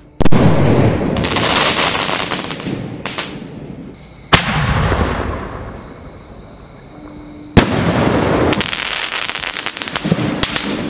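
Sony Fireworks Golden Chip sky shot firing three aerial shells, about four seconds apart. Each sharp bang is followed by a few seconds of crackling as the burst spreads and falls.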